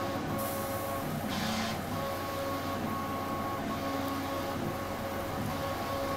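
Steady machine hum with a few wavering steady tones throughout; about a second and a half in, a short hiss as solder and phosphoric acid flux sizzle under the soldering iron tip on a circuit board pin.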